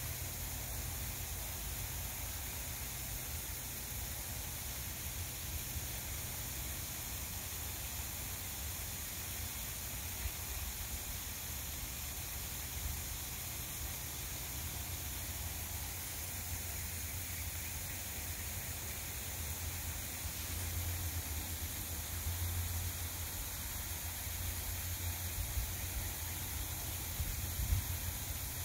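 Steady background hiss with a low rumble underneath; the rumble grows stronger in the last third, with a few soft knocks near the end.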